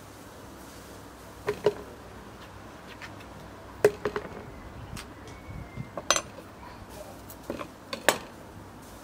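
A metal spoon scooping avocado and knocking against a plastic container, and a knife tapping on a wooden cutting board. The sharp knocks and clicks come in small quick clusters every couple of seconds.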